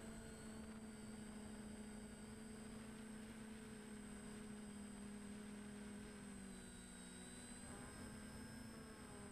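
DJI Flamewheel F450 quadcopter's electric motors and propellers humming steadily, heard faintly through its onboard camera. The pitch dips slightly and shifts about two-thirds of the way through as the throttle changes.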